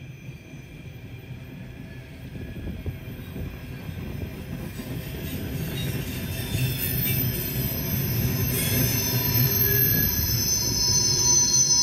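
Freight train rolling by, its wheels squealing with several high steady tones over a low rumble that grows steadily louder as it comes closer.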